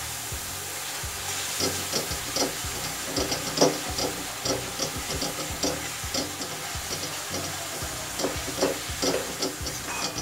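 A spoon stirring and scraping onion and capsicum around a metal kadhai, with irregular scraping strokes over a steady frying sizzle.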